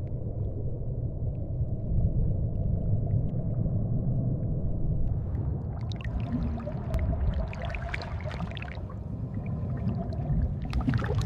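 Underwater ambience: a steady low rumble, with bubbling and crackling that come in about halfway through and again near the end.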